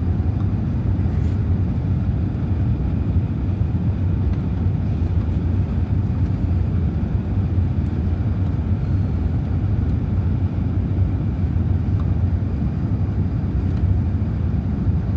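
Steady low rumble inside the cabin of an Airbus A380 climbing out after takeoff: its engines and the rushing air heard through the fuselage from a window seat over the wing.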